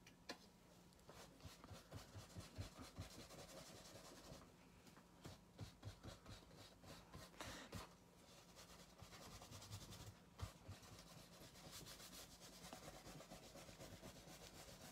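Faint rubbing and scratching of fingers spreading acrylic paint across a canvas, in short irregular strokes with brief pauses.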